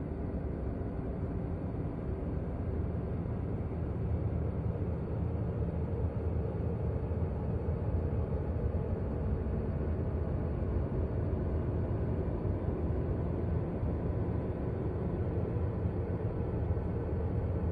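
A space recording turned into sound: a steady, low rumbling drone of dense noise with no high end, unchanging throughout.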